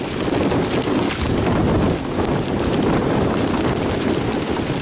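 Strong wind rushing and buffeting the microphone, with rain spattering: the easterly inflow winds near a tornado that is touching down.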